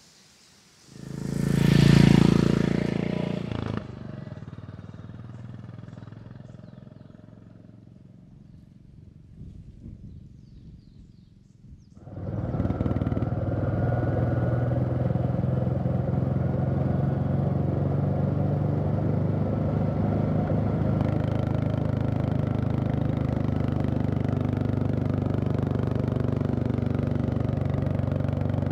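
A loud engine burst about a second in that dies away over the next several seconds; then, from about twelve seconds in, a Royal Enfield Classic 350's single-cylinder engine running steadily at cruising speed, heard from the rider's seat.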